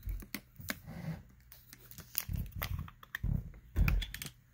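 Plastic water bottle being handled over a shaker cup: scattered crinkling clicks from the thin plastic, with a few dull knocks about two and four seconds in.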